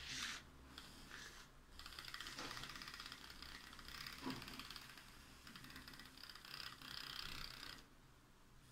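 Handheld battery milk frother whirring in a glass of cold milk and instant coffee, whipping it to foam. It runs steadily for about six seconds, then stops.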